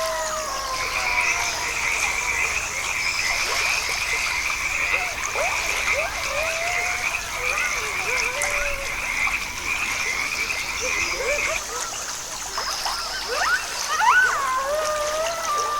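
A frog calling in a long, fast pulsed trill that stops about three-quarters of the way through, with short rising and falling whistles sounding around it.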